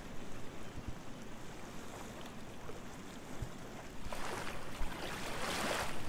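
Kayak paddle strokes splashing in river water over a steady wash of moving water, with two louder splashes about four and five and a half seconds in.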